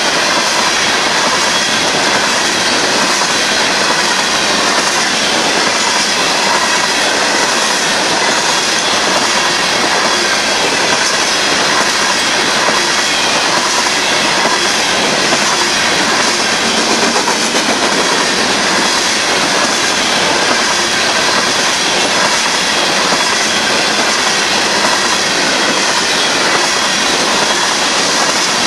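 Union Pacific grain train's covered hopper cars rolling past, a steady, unbroken noise of steel wheels on rail.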